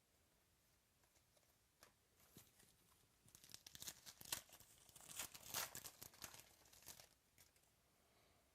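A trading card pack wrapper being torn open and crinkled, a few light clicks followed by about four seconds of dense crinkling and ripping.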